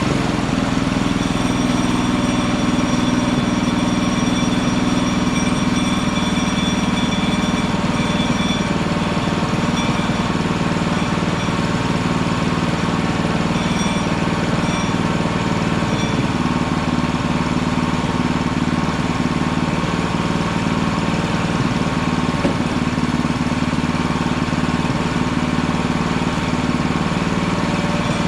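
Hudson Hunter band sawmill running steadily under its small gas engine, with a faint high whine over the engine for the first several seconds that then fades.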